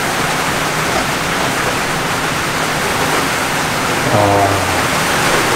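Steady rain falling on a wooden hut's roof and glass skylights, heard from inside the hut as an even hiss.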